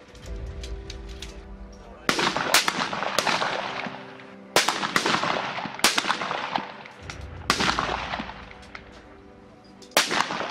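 Rifle shots fired one at a time from several firing points on a range, about seven sharp cracks at uneven intervals, some half a second apart. Each crack is followed by a long rolling echo.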